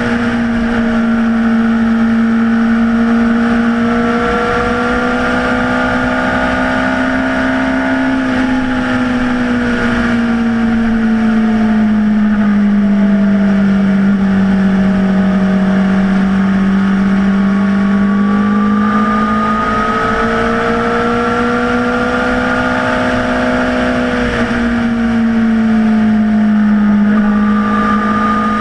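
Honda CBR600RR's inline-four engine running at cruising revs, its note sinking and rising slowly as the throttle changes, over wind noise.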